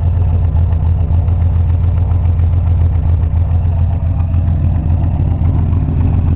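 Exhaust of a cammed Hyundai Tiburon idling steadily through new quad tips and an added muffler, a low, even note that sounds a lot quieter than straight-through.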